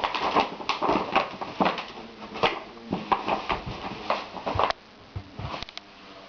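A shopping bag rustling and crinkling in quick irregular bursts as a Great Dane puppy plays with it, breaking off about three quarters of the way through.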